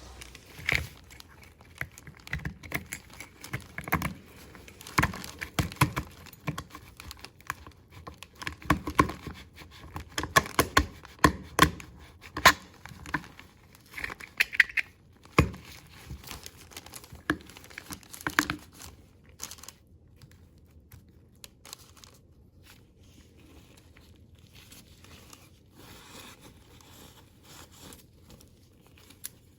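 Hands handling the parts of a PECS oil filter during disassembly and cleaning: irregular clicks and knocks with rustling, busy at first and sparser and quieter for the last third.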